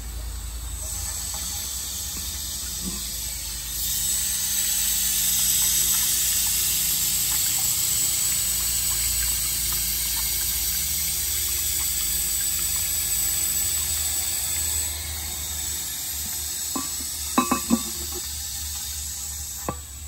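Toilet cistern refilling through its float valve: a steady hiss of inflowing water, louder from about four seconds in, easing off at about fifteen seconds in as the tank nears full. Near the end come a few sharp ceramic clacks as the cistern lid is put back on.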